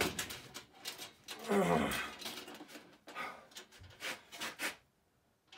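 A man grunting and breathing hard with effort while lifting an anvil of about 117 kg, with a long strained groan about one and a half seconds in. A low thump comes a little before four seconds in, followed by a few sharp breaths.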